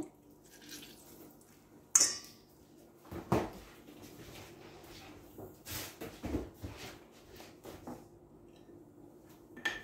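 A metal spoon clinks sharply against a stainless steel mixing bowl about two seconds in, followed by a few quieter knocks and clatters of kitchen utensils being handled.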